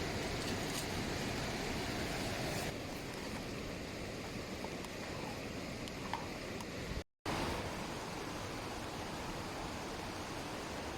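Steady rush of flowing river water. The sound changes abruptly about two and a half seconds in and cuts out for a moment about seven seconds in.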